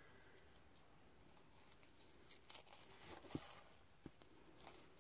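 Faint rustling of paper as a small paper-wrapped stone is unwrapped by hand, with a couple of soft taps from the handling a little past the middle.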